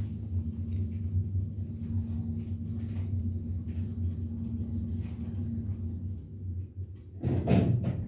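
1984 Tepper passenger-goods lift car travelling: a steady low hum from the running drive, with a faint steady whine that fades about three-quarters through. Near the end comes a louder low rumble and bump as the car slows and stops.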